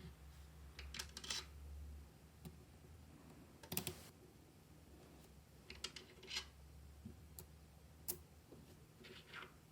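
Small magnetic balls clicking together as they are set in place one by one: faint, sharp, irregular clicks about a second apart.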